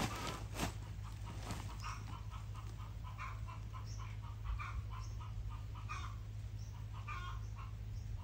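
Chickens clucking in short, irregular calls over a steady low hum, with a couple of sharp clicks in the first second.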